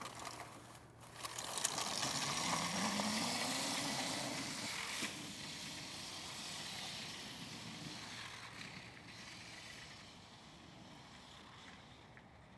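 SSE electric dirt bike pulling away: its motor whine rises in pitch for a few seconds over a rushing noise, then fades steadily as the bike moves off.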